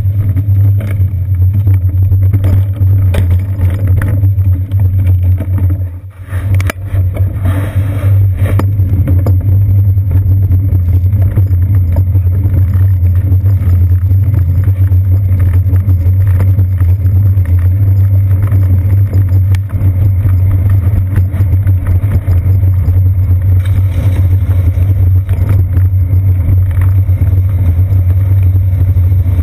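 Steady, loud low rumble of a bicycle ride picked up through a seat-post-mounted GoPro Hero 2: road vibration and wind on the camera, briefly dropping away about six seconds in.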